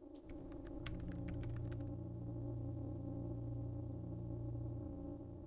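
Computer keyboard typing: a quick run of key clicks, about ten, in the first two seconds. A steady low synthesizer drone runs underneath and fades near the end.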